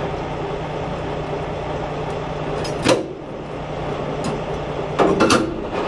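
Semi-trailer landing gear being cranked by hand: a steady mechanical hum, with a sharp metal clank about three seconds in and a quick cluster of clanks near the end.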